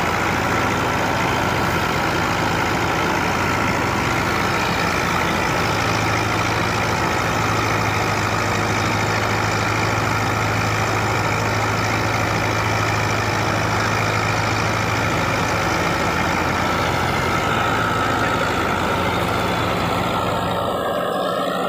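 Massey Ferguson 265 tractor's diesel engine running steadily under load, powering a wheat thresher whose machinery adds a continuous whir as sheaves are fed in. The deep engine note drops away about a second before the end.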